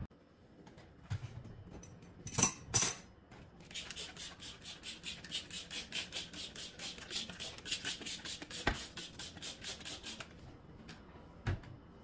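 Trigger spray bottle of cleaner pumped onto a stainless-steel gas hob. Two loud sprays come first, then a quick run of short hissing sprays, about four or five a second, for some six seconds. A single click and a knock come later.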